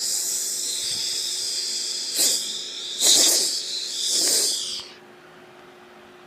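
A person hissing through the mouth as an animal-sound imitation: a long high hiss with three louder breathy surges, cutting off about five seconds in.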